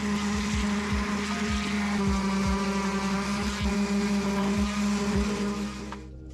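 Electric palm sander running steadily as it sands down two-part epoxy filler on a metal hinge, a steady buzzing hum with a hiss of abrasion. It cuts off suddenly near the end.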